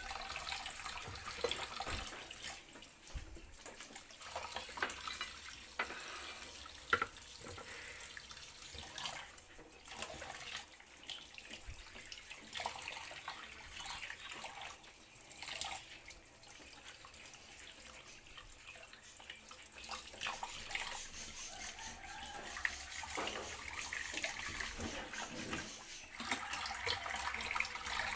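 Water running from a kitchen tap into a sink, unevenly, with scattered small clicks and knocks.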